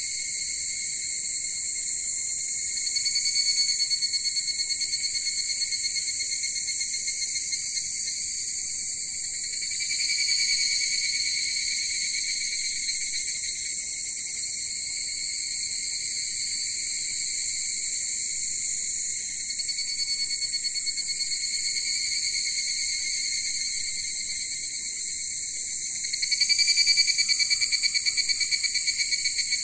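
Steady chorus of crickets trilling, high-pitched and continuous, swelling a little louder every several seconds.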